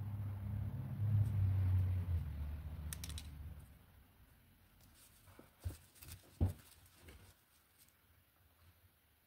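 A low rumble for the first three and a half seconds or so. Then a few small clicks and taps of glass and metal spacer beads being threaded onto elastic cord, the sharpest about six and a half seconds in.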